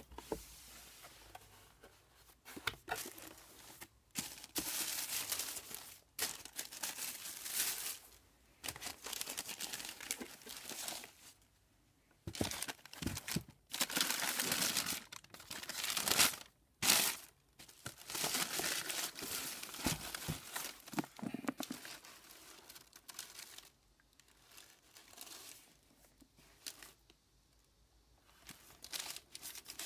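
Tissue paper and a plastic bag lining a shoebox crinkling and rustling as hands open the box, push the wrapping aside and lift out a shoe. It comes in irregular handfuls and grows softer and sparser in the last third.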